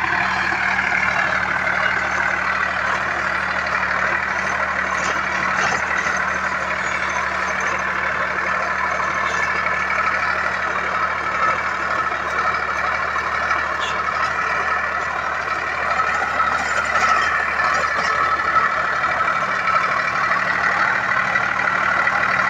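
Sonalika Sikander DI 50 RX tractor's diesel engine running steadily under load, driving a six-foot Sonalika rotavator that is churning dry soil. An even, unbroken drone with no change in engine speed.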